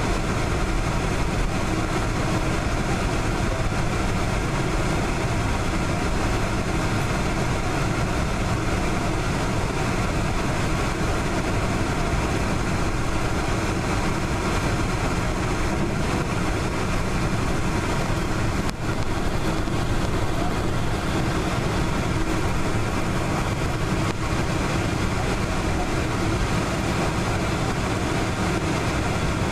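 Steady cabin noise of a Boeing 747-400 taxiing, its jet engines running evenly at low thrust and heard through the fuselage. A brief click comes about two-thirds of the way in.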